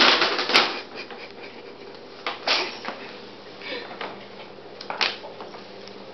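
Brown paper bag rustling and crinkling as a kitten moves inside it and scrambles out, in a few separate bursts: a loud one at the start lasting about a second, then shorter ones about two and a half and five seconds in.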